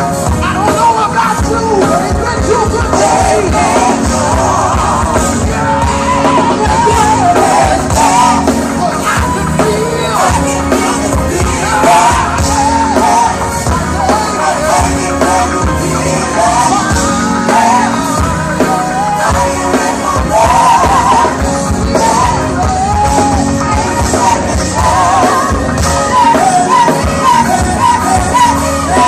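Choir singing loudly with a backing band, with some shouts among the voices.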